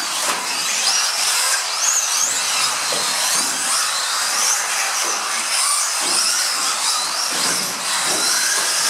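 Several radio-controlled off-road race cars' motors whining, the high pitch rising and falling as they accelerate and brake, over a steady hiss.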